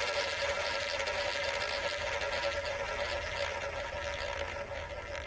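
Simulated roulette ball rolling around the rim of a spinning roulette wheel, a game sound effect. It is a steady rolling rush with a faint hum that slowly fades as the ball slows.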